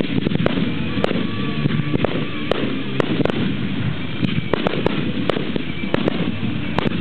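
Aerial firework shells bursting in an irregular string of sharp bangs.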